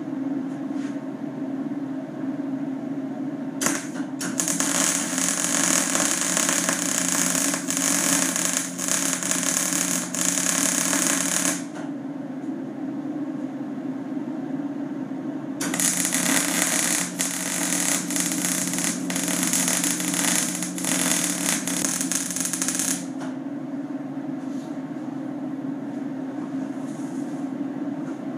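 Electric arc welder laying two tack-weld runs on steel, each a dense crackle lasting about seven to eight seconds: the first starts a few seconds in, the second a few seconds after the first ends. The welder hums steadily underneath.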